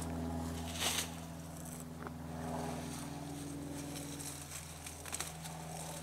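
Sweet potato vines and leaves rustling as they are pulled back by hand, in short bursts about a second in and again near the end. Under it runs a steady low mechanical hum.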